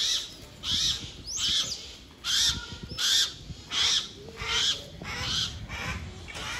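Harris's hawks calling: a run of about nine harsh, rasping calls, evenly spaced at about three calls every two seconds.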